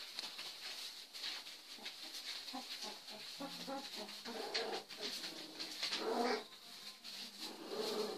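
Young puppies play-fighting, giving several short growls and whines from about three seconds in.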